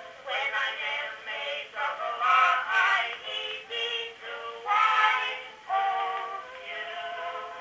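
Horn phonograph playing an old acoustic Edison record: a sung vocal line with accompaniment, thin-sounding with no bass.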